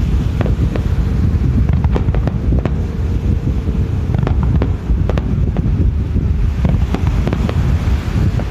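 Fireworks shells bursting over the sea, a string of sharp bangs and crackles at irregular intervals. Under them runs a heavy, steady rumble of wind on the microphone.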